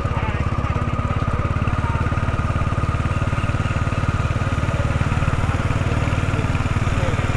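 Engine running steadily at an even speed, its low rumble pulsing fast and regularly.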